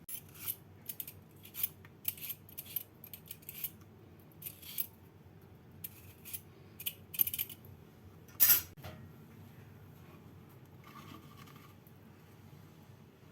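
An irregular run of short, sharp cutting and snipping sounds from kitchen food preparation, several a second. The loudest comes about eight and a half seconds in, and the sounds stop about nine seconds in.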